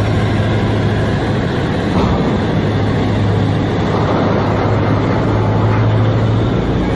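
Large mining haul truck driving past loaded with rock, its diesel engine giving a steady, heavy drone with a strong low hum.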